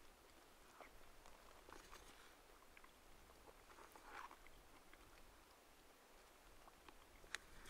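Near silence broken by faint rustling and scraping of a spoon in a food pouch, with a few small clicks, the sharpest one near the end.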